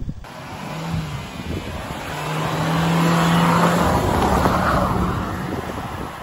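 Nissan X-Trail T32 with its 2-litre naturally aspirated petrol engine driving through snow, the engine note held at one steady pitch under load, with tyre noise on the snow. The sound builds to its loudest about three to four seconds in as the car comes close, then eases off.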